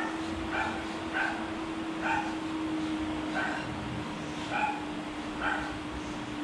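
A dog giving short yips, about seven in a few seconds at uneven intervals, over a steady low hum.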